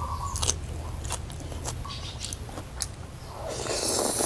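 Mouth sounds of eating: wet chewing with scattered clicks as a mouthful of raw banana blossom is chewed, then a long noisy slurp of rice noodles near the end.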